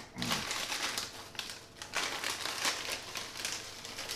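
Plastic bag crinkling and crackling in irregular bursts as it is handled and squeezed open.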